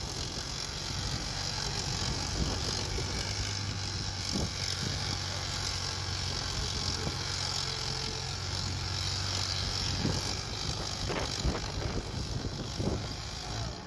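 Antique farm tractor's engine running steadily under heavy load as it slowly drags a weight-transfer pulling sled.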